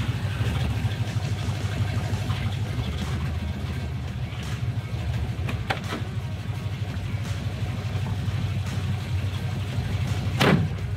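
Fuel-injected small-block Chevrolet V8 of a 1968 Camaro, converted to Holley Sniper EFI, rolling past at low speed and then idling with a steady low rumble. A brief knock comes near the end.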